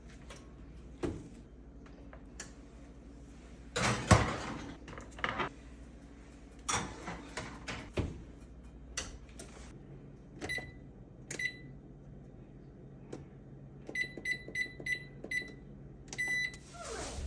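Kitchen clatter and knocks, loudest about four seconds in, then the beeps of an oven's electronic control panel as it is set. There are two single beeps, a quick run of five, and a longer beep near the end, over a steady low hum.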